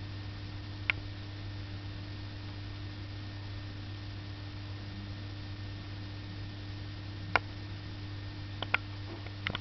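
Steady low electrical hum, with a few faint sharp ticks: one about a second in and several close together near the end.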